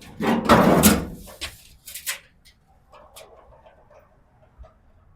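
A loud scraping rush lasting about a second, followed by a few sharp clicks and knocks and faint rattling: interior parts being pulled and handled while a car is stripped.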